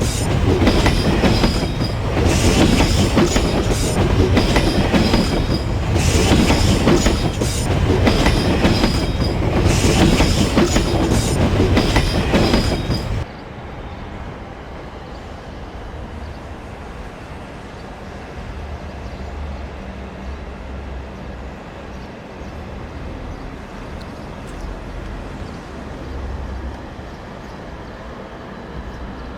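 Train wheels running over rail joints in a rhythmic clickety-clack, with a thin high-pitched squeal over the rumble. About 13 seconds in it cuts off abruptly to a much quieter low rumble.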